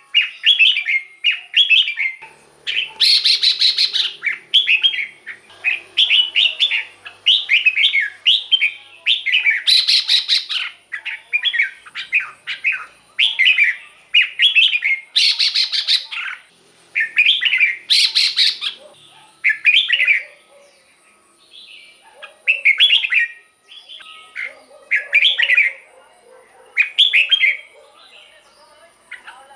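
Red-whiskered bulbul singing: short, quick warbled phrases repeated over and over, broken by a few louder, harsher bursts. In the last third the phrases come farther apart, with short pauses between them.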